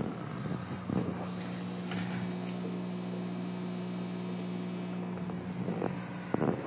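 Steady low electrical mains hum from aquarium equipment, with a few soft handling knocks and louder knocks near the end.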